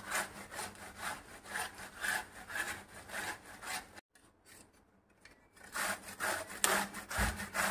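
Bottle gourd being grated on a stainless steel box grater: rasping strokes about two a second, stopping for about a second and a half midway and then starting again.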